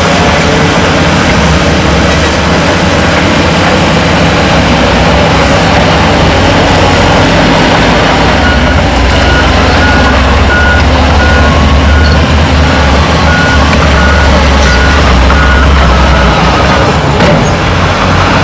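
Heavy diesel earthmoving machinery running, its engine rising in the low end about halfway through, with a reversing alarm beeping about three times every two seconds for several seconds.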